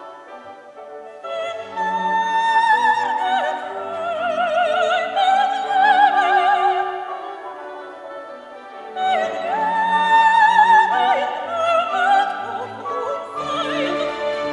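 Operatic soprano singing two long phrases with wide vibrato, with a brief pause between them, over sustained orchestral strings.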